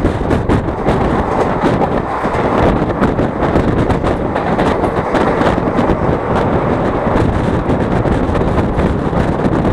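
Steady rush of wind over the microphone mixed with the running noise of a moving passenger train's wheels on the rails.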